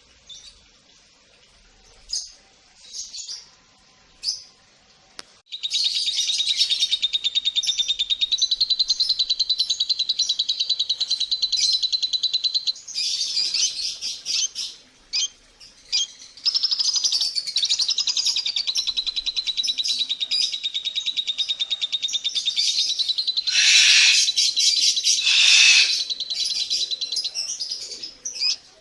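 Lovebirds chattering: a few short chirps at first, then long runs of fast, continuous chatter over a steady high note. The chatter breaks off about halfway through, then resumes and peaks in louder, harsher calls near the end.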